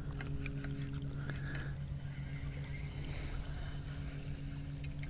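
Paddleboard afloat on calm water: faint water noise and a few small knocks against the board, under a steady low hum.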